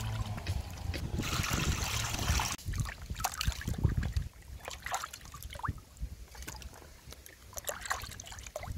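Water splashing and sloshing in a plastic basin as fish are handled and scrubbed by hand, with a longer splash about a second in, then irregular small splashes and drips.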